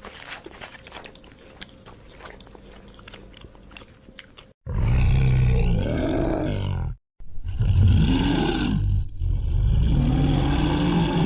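A large animal's loud, low, drawn-out calls, three in a row, each about two seconds long, starting about four and a half seconds in after faint clicking.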